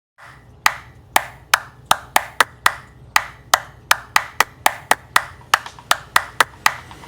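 Sharp percussive clicks, about three a second and slightly uneven, over a low steady hum: the opening of a music track.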